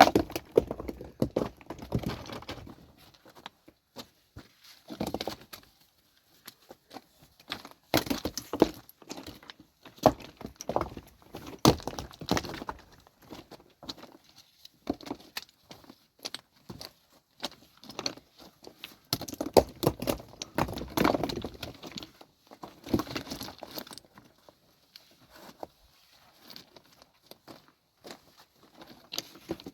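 Irregular clattering knocks and clinks of hard objects being handled and struck, coming in short clusters with quiet gaps between.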